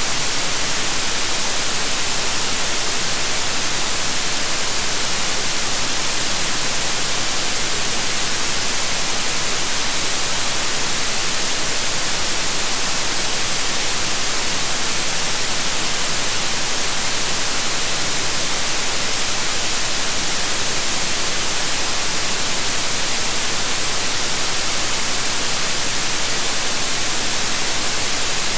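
Steady synthetic white noise: an even, unchanging hiss, bright and loudest in the upper frequencies.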